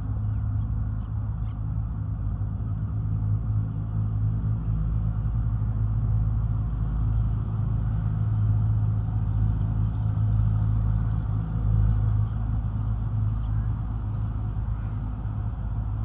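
Steady low mechanical hum, like an engine or motor running without a break.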